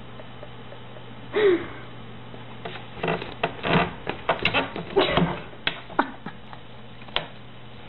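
A short cry about a second and a half in, then a quick run of knocks, taps and rustles for a few seconds as a kitten scrambles about among cords and paper by a wooden desk, with one last click near the end.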